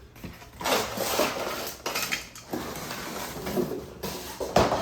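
Small metal parts clinking and rattling as they are handled, with a sharp knock near the end.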